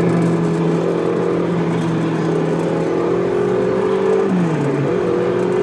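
An amusement ride's motor running with a steady hum that dips in pitch and recovers about four and a half seconds in.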